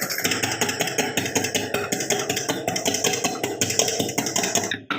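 Hand whisking of instant coffee, sugar and warm water in a bowl: rapid, even clicking of the utensil beating against the bowl as the mixture is whipped to a foam for dalgona coffee. It breaks off briefly near the end.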